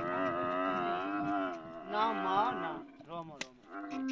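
Dromedary camels bellowing in long, wavering calls that rise and fall in pitch. One call trails off about a second and a half in, another follows around two seconds in, and a third begins near the end. A single sharp click comes a little after three seconds.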